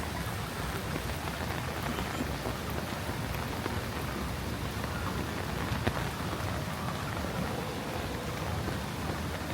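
Steady rain falling, with one sharp tap a little past halfway through.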